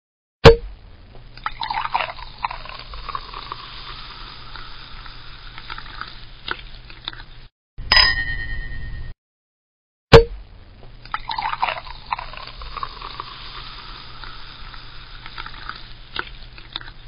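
A champagne cork pops, and champagne is poured and fizzes into a glass for several seconds. Glasses clink with a ringing tone, and then the cork pop and fizzing pour come again.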